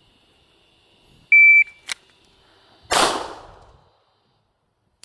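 Shot timer's start beep, then a single pistol shot from a Beretta 92 about a second and a half later, fired double action from the holster; a short click comes between them. The bang fades out over most of a second.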